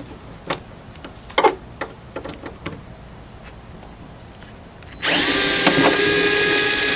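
Power drill/driver spinning up and running steadily for about two seconds, backing out a door handle screw. Before it, a few light clicks and taps of handling.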